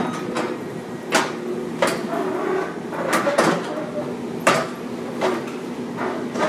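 Komatsu hydraulic excavator's diesel engine running steadily while its bucket and thumb tear at a building's steel frame, with a string of sharp metal clanks and crashes of breaking debris at irregular intervals.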